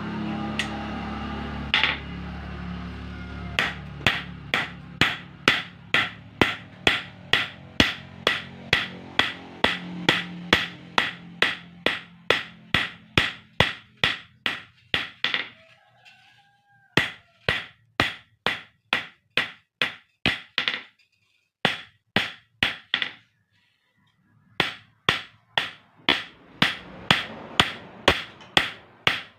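Hand hammer forging a red-hot steel knife blade cut from a motorcycle brake disc on a steel post anvil: steady ringing blows, about two a second, that start a few seconds in and stop twice for short pauses.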